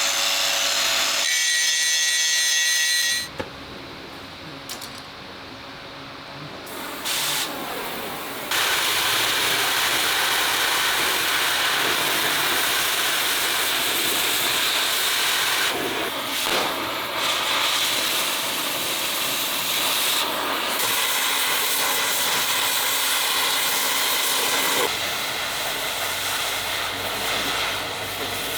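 Power grinder grinding down the raised metal around shell holes in a cast steel tank turret, in long steady stretches. It drops to a quieter sound from about three to eight seconds in.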